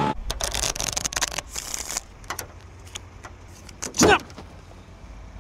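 Hands rubbing and tapping on a pickup's bonnet, with scattered clicks, and a short, loud squeak falling sharply in pitch about four seconds in.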